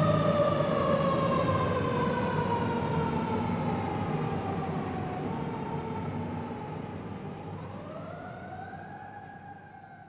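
Emergency vehicle siren wailing, one slow falling sweep then a rise again near the end, over a low rumble of the vehicle on the road. It grows steadily fainter as the vehicle drives away.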